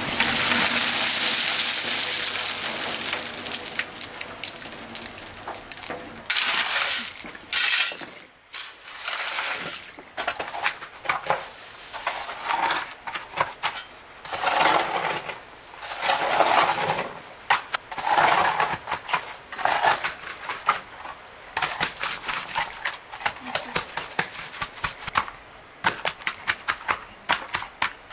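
Soupy, over-watered concrete sliding out of a tipped steel wheelbarrow onto a path, then a wooden hand float scraping and slapping across the wet concrete, the strokes coming quickly, several a second, near the end.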